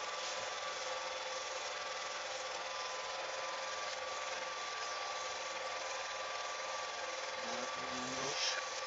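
Home-movie film projector running: a steady mechanical whir with a constant hum.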